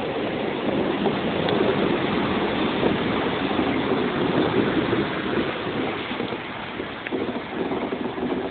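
Class 143 Pacer diesel multiple unit running in alongside the platform: a steady rumble of diesel engine and wheels on rail. It grows quieter over the last few seconds as the train slows to a stop.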